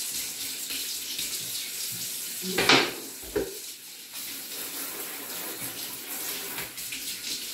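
Kitchen faucet running steadily into a sink, the stream splashing over hands being rinsed under it. A brief louder burst comes about two and a half seconds in.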